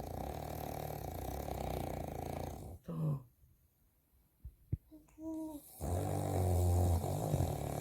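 A sleeping man snoring: two long snores, the second starting about six seconds in.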